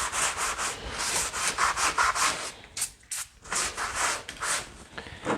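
Quick back-and-forth rubbing strokes, about three or four a second, with a brief pause about three seconds in.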